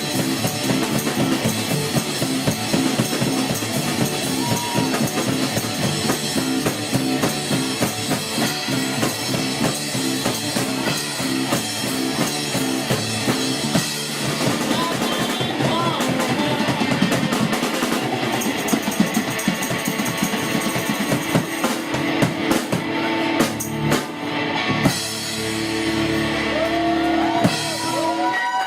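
Live rock band playing with drum kit, bass drum and electric guitar, winding up to a held chord with drum hits near the end as the song finishes.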